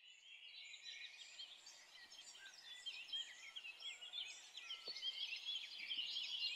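Many small birds chirping and twittering at once, a busy overlapping chorus of short quick calls that fades up over the first second.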